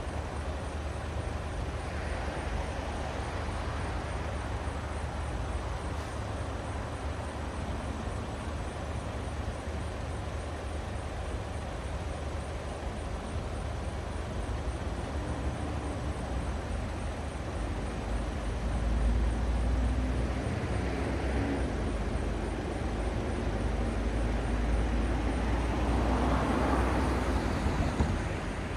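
City street traffic at an intersection: a steady hum of engines and tyres with a deep rumble. The rumble grows louder about two-thirds of the way through, and a rushing swell rises and fades near the end.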